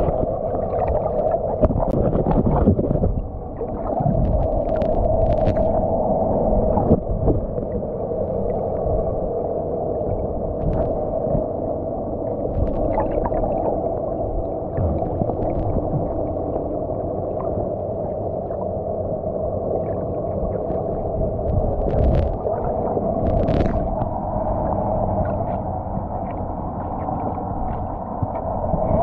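Underwater recording of a boat engine's steady droning hum, with low rumbling water noise and scattered short clicks and knocks.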